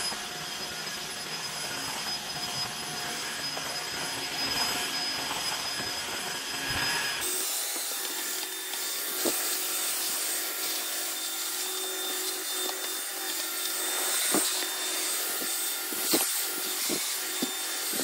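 Tineco S3 wet/dry floor washer running, its suction motor and wet roller head pushed back and forth over tile with a steady hum and rubbing strokes. The sound shifts in tone about seven seconds in.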